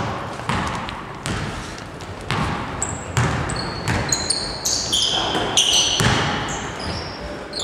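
Basketball bouncing on a hardwood gym floor, irregular thuds that echo around the hall, with sneakers squeaking sharply on the boards from about three seconds in as players cut and run.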